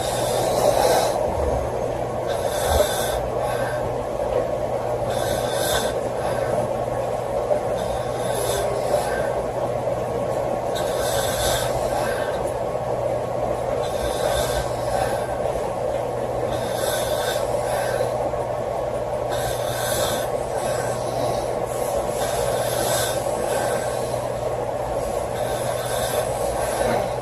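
A woman snoring in a slow, even rhythm, one hissy, rasping breath about every three seconds, over a steady low hum.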